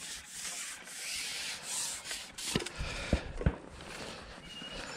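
Rustling and rubbing noise of close handling, with three dull knocks in quick succession a little past the middle.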